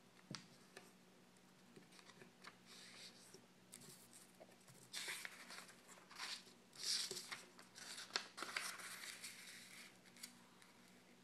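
A sheet of origami paper being handled, folded and creased by hand, sliding on a wooden tabletop: faint rustling and swishing, with a few light taps near the start. The rustling grows louder and busier in the second half.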